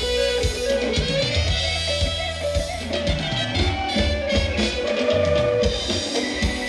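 Live band playing upbeat Thai ramwong dance music, with a drum kit keeping a steady beat under a sustained melody line.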